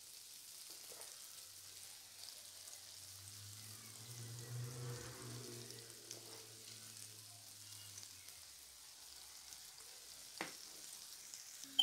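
Lentil-batter fritters (dahi bara) frying in oil in a non-stick wok: a faint steady sizzle and crackle of oil bubbling around them. A low hum swells and fades in the middle, and a single sharp click comes near the end.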